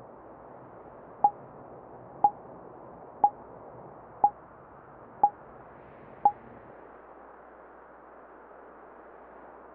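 Synthetic animation sound effect: six short, clear pings one second apart over a steady low hiss.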